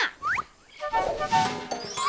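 Cartoon sound effects and a musical sting: a quick rising whistle-like slide, a short gap, then a bright, tinkly jingle of short notes with more rising slides, the cue for the talking Map's entrance.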